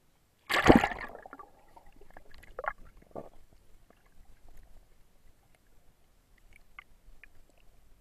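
Splash and rush of sea water as a camera is plunged below the surface about half a second in, followed by a few short gurgling bubbles and then faint clicks and a low hush underwater.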